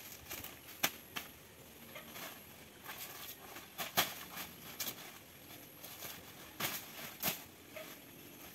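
Dry leaves and undergrowth crackling, with irregular sharp snaps scattered through, the loudest about four seconds in and twice near the end, over a faint steady high whine.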